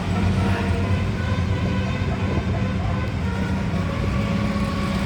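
Steady drone of a large bus engine passing, with road traffic noise and faint steady tones above it.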